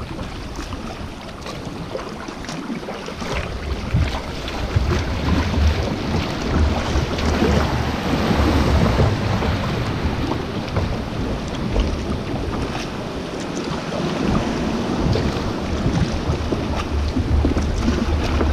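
Sea kayak paddling close under cliffs: paddle strokes splashing while the sea washes and swirls against the rocks around the boat. Wind buffets the deck-mounted camera's microphone with a low rumble.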